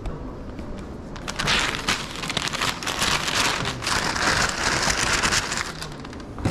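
A brown paper bag rustling and crinkling as it is opened and wrapped hot dogs are packed into it. The crackle is busiest from about a second in until shortly before the end.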